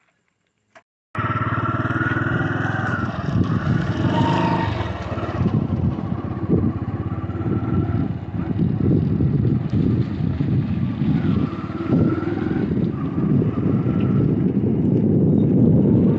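Motorcycle engine running as the bike is ridden, a dense low run of firing pulses that cuts in suddenly after a second of silence and grows slightly louder toward the end.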